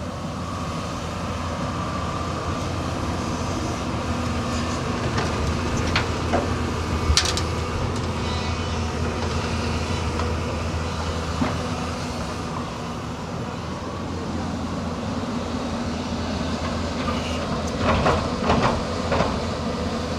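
Hyundai 215L crawler excavator running steadily as it digs in rocky ground. Occasional sharp knocks of bucket and stones come through, one strong one about seven seconds in and a cluster of several near the end.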